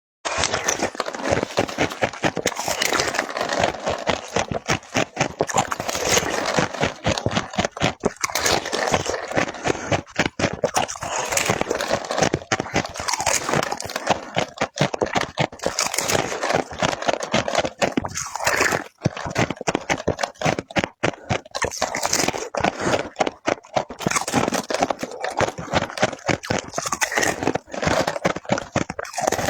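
Ice being bitten and chewed close to the microphone: dense, rapid crunching that goes on almost without pause.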